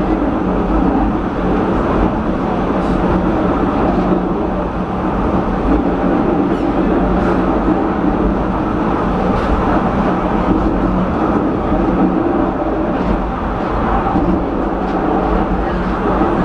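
Penang Hill Railway funicular car running on its rails, heard from inside the car: a steady rumble with a low hum and a few faint clicks.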